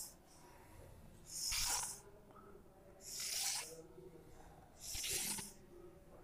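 Chalk drawn across a blackboard in three long strokes about a second and a half apart, each a scratchy hiss, as grid lines are drawn.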